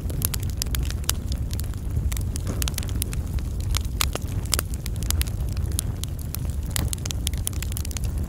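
Wood fire burning, with frequent sharp crackles and pops over a steady low rumble.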